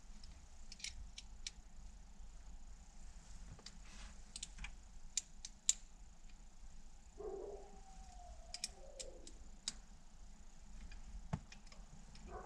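Small metallic clicks and ticks of an Allen key working the handle bolts of an MGW short-throw shifter as they are tightened, with a brief hum about seven seconds in.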